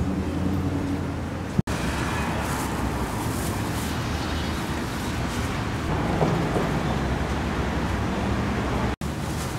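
Steady street traffic rumble, cut off by a sudden brief dropout about one and a half seconds in and again near the end.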